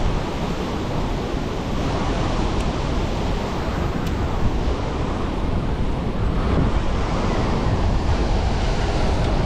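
Water rushing out through the open gates of a dam, a steady turbulent rush of heavy current, with some wind on the microphone.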